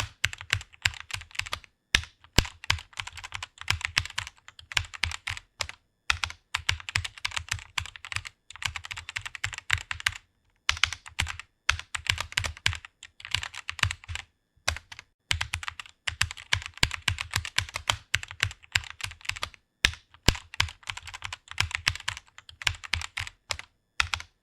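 Fast typing on a computer keyboard: a rapid run of key clicks broken every few seconds by brief pauses.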